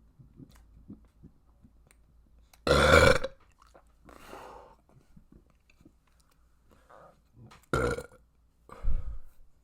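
A person burping loudly: one long burp about three seconds in, then two short burps close together near the end, with a quieter sound between them.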